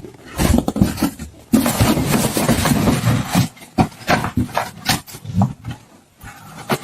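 A dog making a rapid run of short, rough vocal noises, with a longer noisy stretch starting about a second and a half in.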